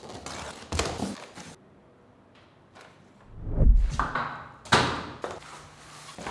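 Handling noises from unboxing a drawer cabinet: scraping and rustling, a heavy low thud about three and a half seconds in, then a sharp knock just before five seconds.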